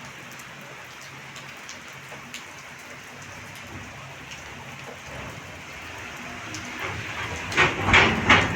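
Heavy rain falling steadily, with drops pattering on a surface. Near the end it swells into a few loud rushing bursts.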